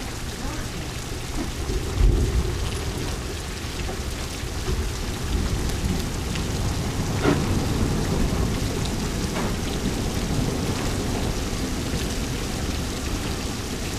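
Steady rain falling outside an open door during a thunderstorm, with a rumble of thunder starting about two seconds in.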